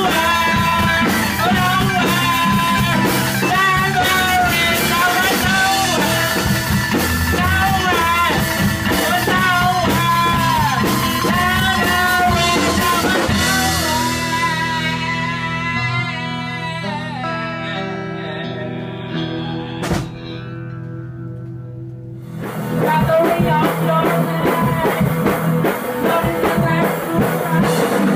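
Background rock music with a singing voice, guitar and drums. About halfway through it thins to a quieter passage, with one sharp click, then the full band comes back in with a few seconds left.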